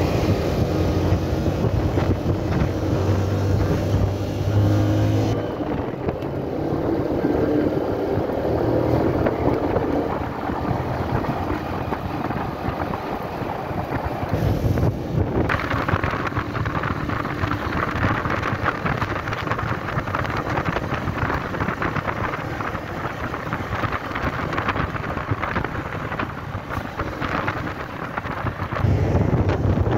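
Motorcycle engine running while riding, with wind rushing over the microphone; the wind hiss grows heavier from about halfway through.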